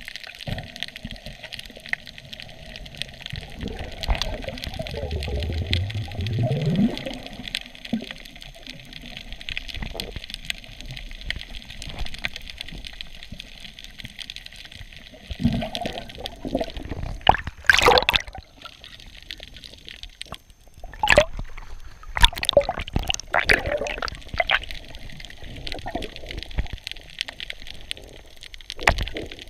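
Water heard from a camera held underwater: a muffled steady hiss with a low rising hum about five seconds in. From the middle on come loud sloshing and splashing bursts and knocks, in clusters, as the camera moves near the surface.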